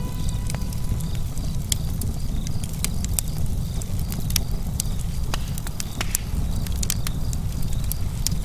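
Fire crackling: scattered sharp pops and snaps over a steady low rumble.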